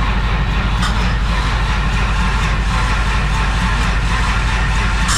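A vehicle engine running steadily at low speed, with a fast, even low throb.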